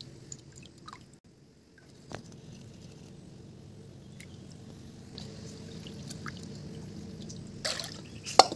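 Hands washing and scraping whole fish in a metal bowl of water: wet squishing, drips and small clicks of the knife. Near the end, two loud splashes as the metal bowl is tipped and the water is poured out.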